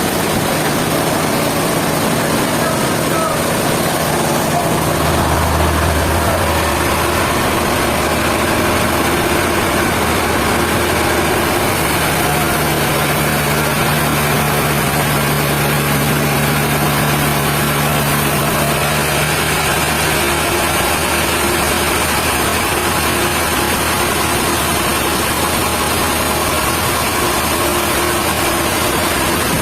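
Sawmill machinery running steadily: a constant mechanical noise with a low hum that rises and fades a couple of times.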